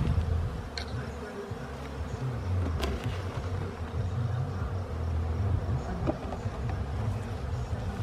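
Swarm of honeybees buzzing around an opened hive, a continuous wavering hum, with a sharp knock about three seconds in and a couple of lighter ticks.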